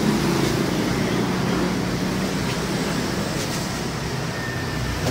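Compressed air rushing from a tyre inflator gun into a motorcycle tubeless tyre: a steady hiss with a low hum underneath.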